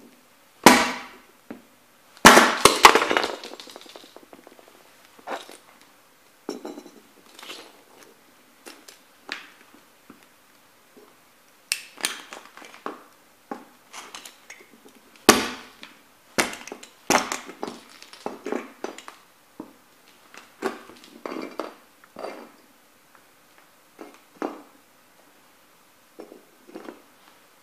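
Sneakers stamping on a small toy truck with orange plastic parts and a metal cab: an irregular string of sharp cracks, crunches and clatters as the toy breaks apart under the soles. The loudest is a long crunch a couple of seconds in.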